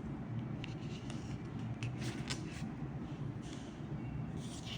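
Faint rustling and a few soft clicks of oracle cards being handled and turned over one by one, with a couple of brief swishes of card sliding on card, over a low steady hum.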